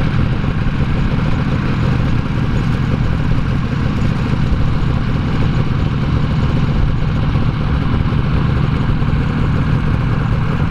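Snowmobile engine running steadily, without changes in speed.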